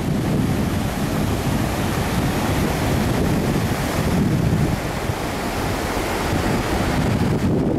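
Waves washing in over a rocky, shallow shoreline, with wind buffeting the microphone.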